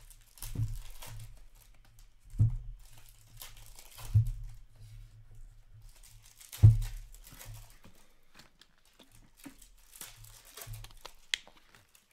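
Stacks of plastic-sleeved trading cards being gathered and set down on a tabletop: four dull thuds, the loudest about six and a half seconds in, amid crinkling and rustling of the plastic sleeves.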